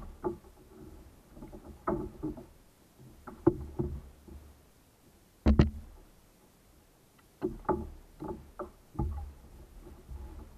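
Irregular knocks and clunks of a landing-net pole and paddle bumping against a kayak hull, the loudest about five and a half seconds in.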